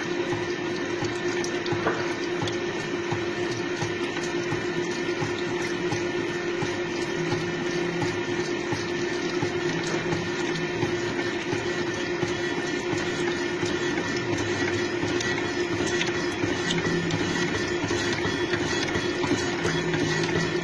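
Gear-cutting machine cutting teeth in a steel bevel gear, running with a steady hum. Coolant pours and splashes over the cut, with faint irregular ticks from the tools.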